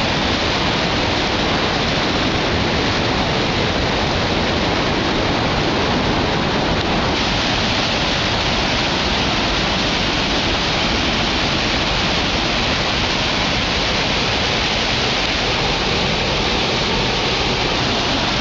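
Steady, loud rush of falling water from Rainbow Falls, a large waterfall, close by.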